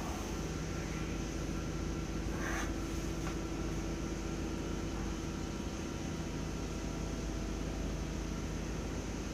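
Steady machine hum: a low drone over an even hiss, with a brief scrape about two and a half seconds in.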